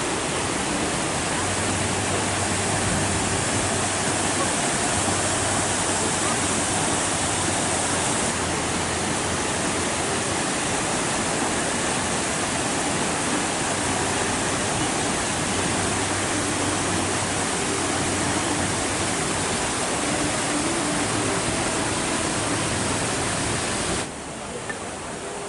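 Steady rushing roar of a waterfall's falling water, dropping suddenly in level near the end.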